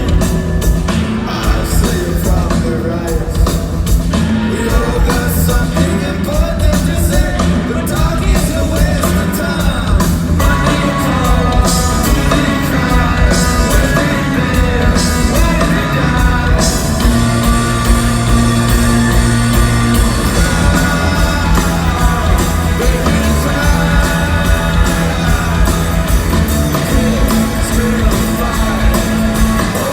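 Live rock band playing loudly: guitars and drums with a lead singer.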